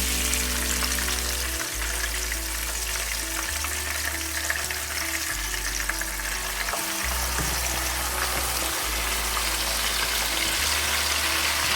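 Cumin seeds frying in hot oil in a pan: a steady sizzling hiss, over background music with sustained low notes.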